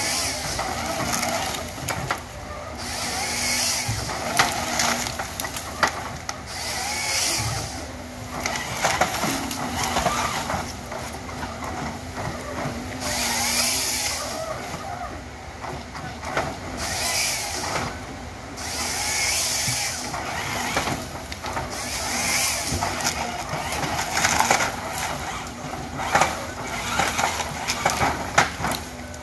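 A Rottne H21D forestry harvester runs with a steady drone while its LogMax 7000C head feeds a log through and bucks it into lengths. The head works the wood with a loud burst of noise every couple of seconds.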